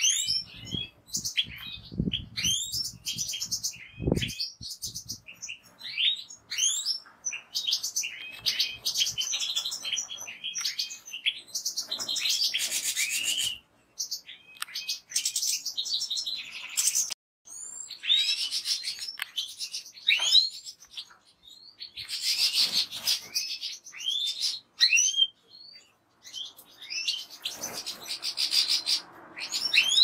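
European goldfinch song: a fast twittering run of chirps, slurred notes and rapid trills, delivered in bursts with short pauses. A few dull low knocks sound in the first few seconds.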